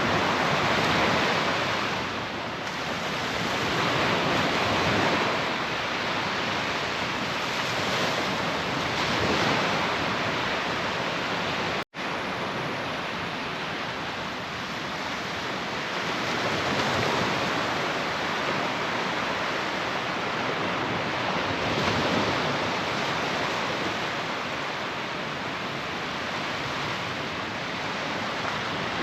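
Sea surf breaking and washing onto the beach, a steady rush that swells and eases every few seconds. The sound cuts out for an instant near the middle.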